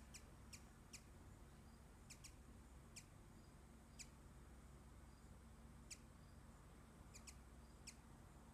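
Hummingbird softly singing: faint, very short, high chip notes, about ten of them at uneven intervals, a few in quick pairs.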